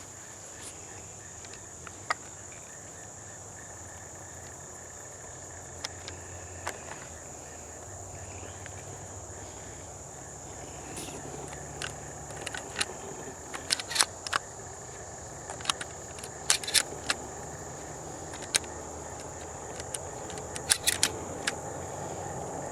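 Crickets chirping steadily, with a low hum under them and scattered sharp clicks and rattles, more frequent in the second half.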